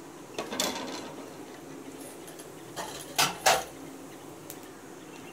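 A few short metal clinks and knocks of a utensil against an aluminium kadai. The two loudest come close together a little past the middle.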